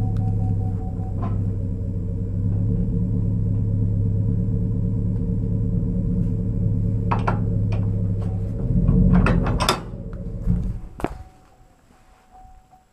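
An engine idling steadily, which shuts off about eleven seconds in. Sharp metal clanks come near the end as a trailer tongue's coupler is set down on the tow hitch.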